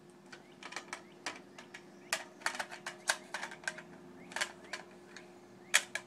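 Irregular sharp clicks and rattles of an AR-15 rifle being handled, some in quick runs, over a faint steady low hum.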